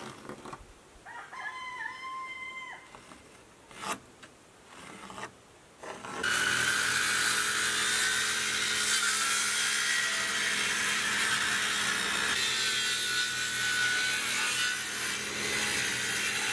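Corded electric power saw cutting into wooden wall boards. It starts about six seconds in and runs steadily, with a constant hum under the rasping cut.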